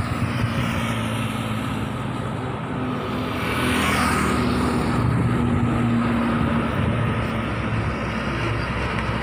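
Highway traffic going by: engine and tyre noise from passing trucks and cars, with one vehicle rushing past about four seconds in.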